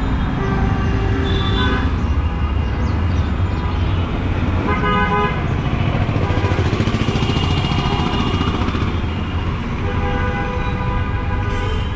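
Busy street traffic with vehicle horns honking again and again, several horns of different pitches overlapping, over a steady rumble of engines.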